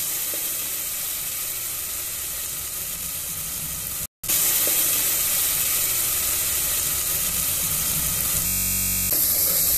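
Chopped onion and ginger-garlic paste frying in oil in an aluminium pressure cooker, with a steady sizzle while it is stirred with a wooden spatula: the onion is being fried until it browns. The sound cuts out for a moment about four seconds in.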